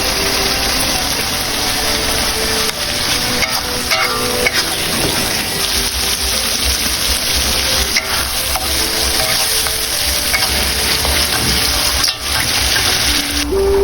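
Food frying in a pan, a steady sizzle.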